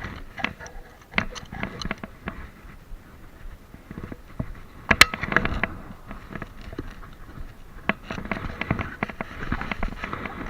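Scattered sharp cracks and clicks, typical of gunshots from elsewhere on a shooting range, the loudest about five seconds in with a short echo after it.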